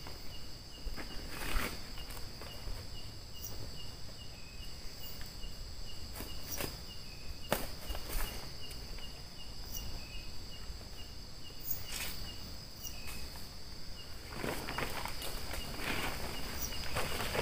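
Insects trilling in a steady high drone, with a second insect chirping about three times a second. A few sharp clicks, then rustling noise in the last few seconds, like footsteps.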